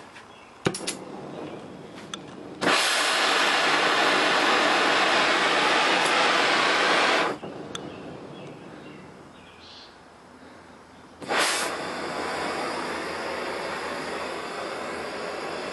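A cutting torch's flame hissing steadily while heating a rust-seized stud in a small engine block to break it loose. A sharp pop about a second in, a loud hiss for about five seconds that then drops away, and the hiss starting again, a little quieter, about eleven seconds in.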